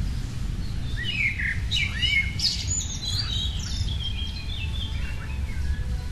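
A songbird singing a quick run of rising and falling chirps and trills for about four seconds, over a steady low rumble.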